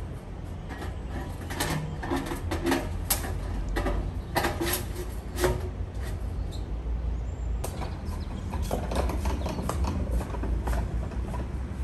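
Stainless steel chimney pipe being fitted onto a brick oven: metal clanks, scrapes and clicks in irregular bunches, over a steady low rumble.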